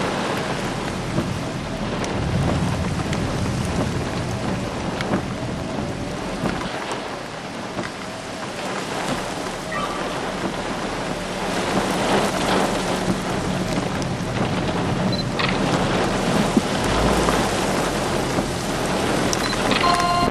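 Steady heavy rain during a thunderstorm, with thunder rumbling.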